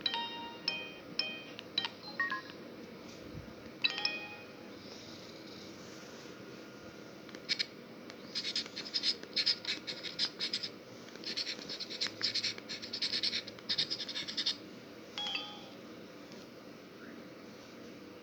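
Samsung U900 Soul mobile phone playing a ringtone through its small built-in speaker. It opens with short chiming electronic notes, goes quiet, then plays a fast run of hissy, clicky percussive beats through the middle, and ends with one more short chime near the end.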